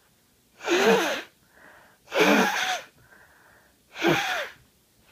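Three sneezes in quick succession, about a second and a half apart, each preceded by a short, faint intake of breath, from a person with a head cold.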